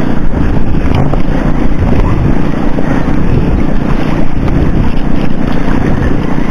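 Wind buffeting the microphone, a loud rough rumble heavy in the low end, over the wash of the sea.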